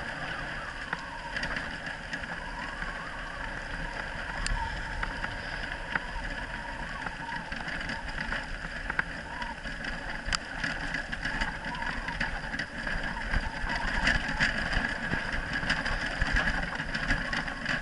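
Dryland dog-sled rig rolling along a dirt track behind a four-dog husky team: a steady rolling, rattling noise with scattered sharp clicks from the rig.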